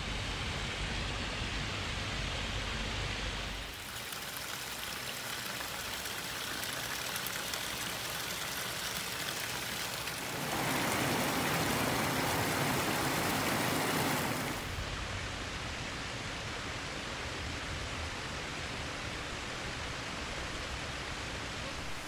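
Steady rushing of a shallow stream and of water spilling over a low weir. The sound shifts abruptly about 4, 10 and 15 seconds in, and is loudest and brightest from about 10 to 15 seconds in. There is a low rumble during the first few seconds.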